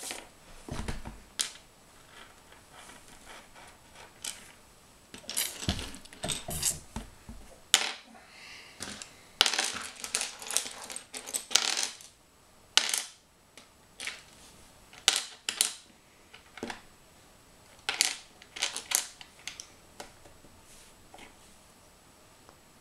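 Loose plastic Lego bricks clicking and clattering as a hand rummages through a pile of them on a tabletop, in irregular clusters of sharp clicks with short quiet gaps between.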